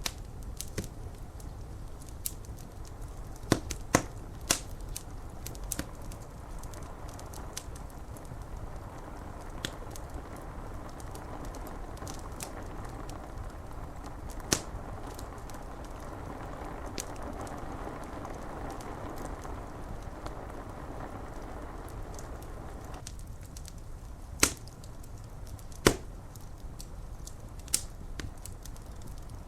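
Wood fire crackling, with irregular sharp pops and snaps, a few much louder than the rest, over a steady hiss of rain. Part of the hiss drops away abruptly about three-quarters of the way through.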